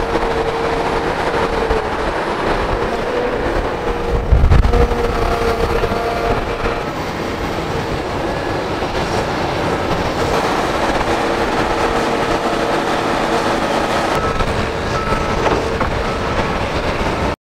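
Diesel tracked excavators working at an earthworks site: engines running under load with a steady drone and held whining tones from the machines. A heavy low thump comes about four seconds in. The sound cuts off suddenly near the end.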